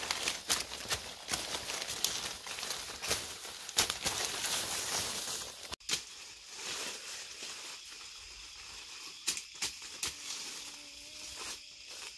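Weeds and dry leaves rustling and crackling as they are cut with a machete and pulled by hand among pineapple plants, with many sharp snaps in the first half. After a brief break about halfway, the rustling goes on more quietly, with a few scattered snaps.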